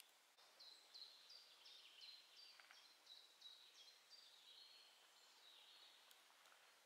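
A songbird singing a run of short, high notes, each dropping slightly in pitch, about three a second for around five seconds.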